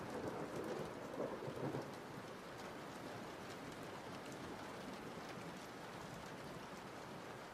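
Rain ambience: an even, steady hiss of rainfall, with a low rumble that fades away over the first two seconds.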